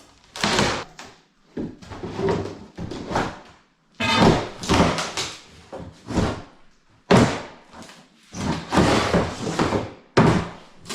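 Repeated heavy knocks and thuds, about a dozen at irregular spacing, each dying away quickly, typical of demolition work prising and breaking up old fittings.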